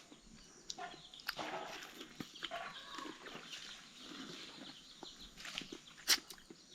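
Faint, scattered animal calls, short and spaced out, mixed with light clicks and taps.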